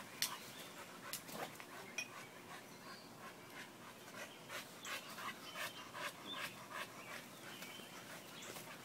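A dog panting hard, quick rhythmic breaths about three a second, with a couple of sharp clicks near the start.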